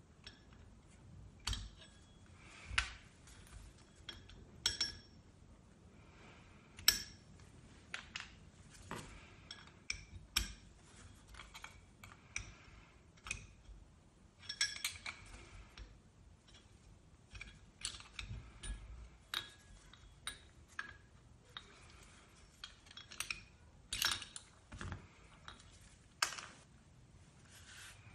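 Irregular metallic clinks and clicks of hand tools and small metal parts being handled, some ringing briefly, as a Honda Hobbit moped's drive pulley is taken apart.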